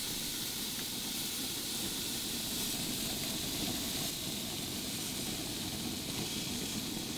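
Steady hiss of a Schwank overhead infrared gas grill burning at its top 1500-degree setting, with steaks searing under the burner.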